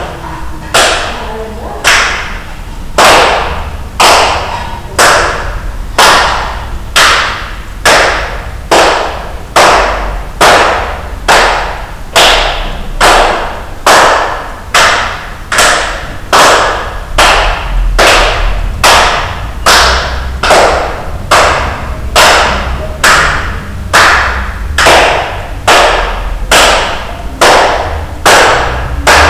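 Sharp knocks or beats struck in a steady rhythm, about one a second, each ringing briefly in a large, echoing room.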